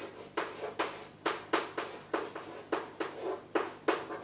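Chalk writing Chinese characters on a chalkboard: a run of short, sharp strokes, about three a second.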